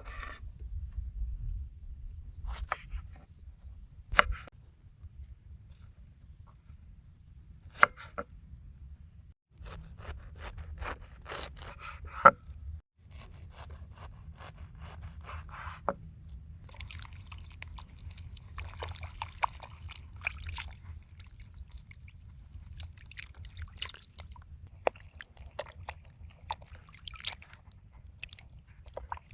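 Hands preparing food: scattered rubbing and scraping with a few sharp knocks, the loudest about 8 and 12 seconds in, over a steady low rumble.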